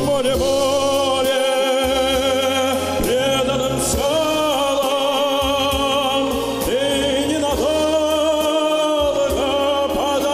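A male vocalist singing long, held notes with vibrato, each new phrase sliding up into pitch, over instrumental accompaniment.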